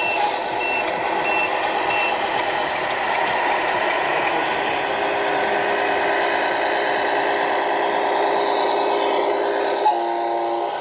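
Sound module of a radio-controlled model truck: reversing beeps, about four in the first two seconds, over a steady simulated diesel engine. A short air-brake hiss comes about four and a half seconds in, and a multi-tone horn sounds near the end.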